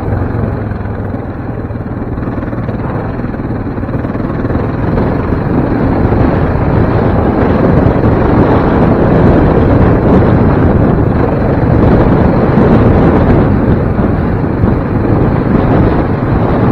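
Sport quad (Yamaha Raptor 700R) riding along a dirt trail, its engine buried under heavy wind buffeting on the microphone; the noise grows louder after about four seconds and stays high.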